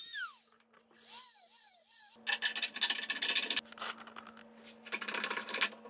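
Handheld rotary tool whining as it winds down and stops about a second in. After a short gap, a rough, repeated rubbing and scraping as a wooden dresser foot is turned by hand onto its threaded stud in the leg bracket.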